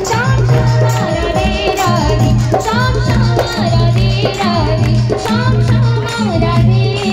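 Devotional song performed live through a PA: a voice singing with gliding, ornamented lines over tabla and small jingling percussion keeping a steady beat.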